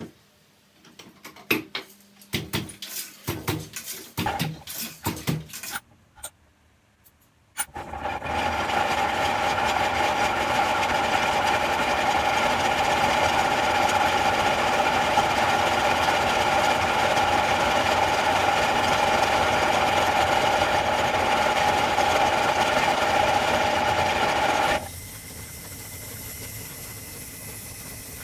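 Wooden high-warp handloom (takabata) in use: irregular wooden clacks and knocks from the shuttle and beater for about six seconds. After a short lull comes a loud, steady whir as a quill winder spins silk weft onto a bobbin for the shuttle, dropping suddenly to a quieter hum near the end.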